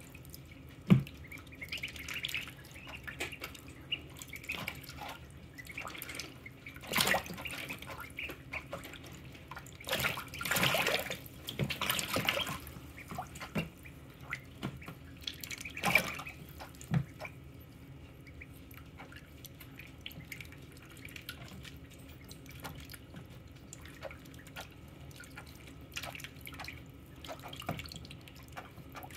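Ducklings splashing and paddling in shallow water in a plastic tub: irregular small splashes and drips, with a few louder bursts of splashing, the longest about ten seconds in.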